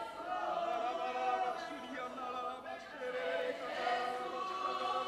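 A congregation singing softly together in long held notes, with little instrumental backing.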